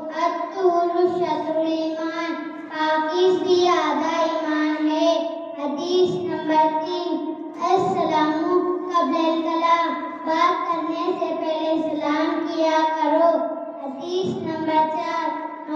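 A young boy singing a melodic recitation into a handheld microphone, in sustained phrases separated by short breaths.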